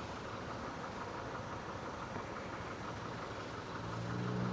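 Rusi Adventure X 150's 150cc liquid-cooled scooter engine idling with the bike at a standstill. A low engine hum grows louder near the end.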